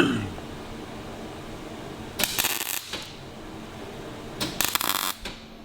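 Electric arc welder on a motorcycle fork brace: two short bursts of crackling arc, each under a second, about two seconds apart.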